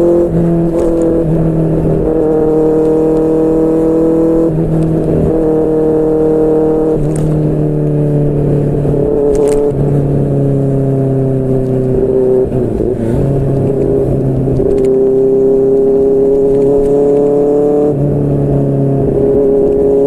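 QJMotor SRK600's inline-four engine through a Yoshimura R11 exhaust, running under steady throttle on the move. The engine note sinks slowly through the first two-thirds, then climbs again near the end.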